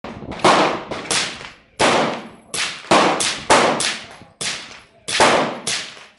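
Suppressed Walther Colt 1911-22 .22 LR pistol with a SilencerCo Sparrow suppressor firing Aguila Super Maximum high-velocity rounds: about ten sharp, cracking shots fired in quick succession at an uneven pace, each dying away fast. The rounds are supersonic, so the bullet's crack still comes through the suppressor.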